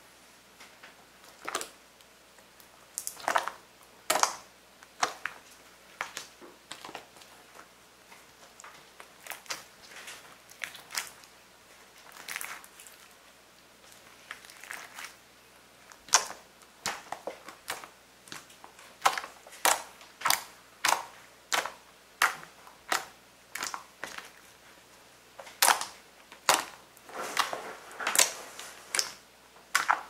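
Hands kneading and pressing a glossy green slime, giving sharp, wet pops and clicks at irregular spacing as air pockets in it are squeezed and burst. The pops come in quicker runs in the second half.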